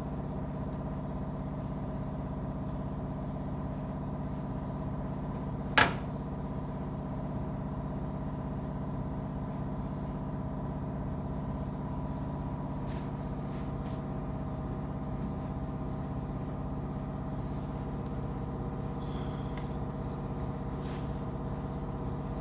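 A spark plug wire boot snaps onto its terminal with one sharp click about six seconds in, followed by a few faint handling clicks. Under it runs a steady hum made of several even tones.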